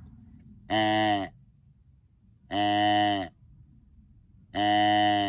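Adjustable 'Extinguisher' deer call blown three times on its doe setting: three short doe calls, each about half a second long at one steady pitch, evenly spaced. Crickets buzz faintly and steadily between them.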